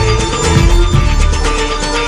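Loud DJ-played dance music over a club sound system, with a heavy bass line and a steady drum beat.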